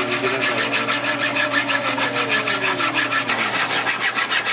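Hand sawing: fast, even back-and-forth rasping strokes, about six a second.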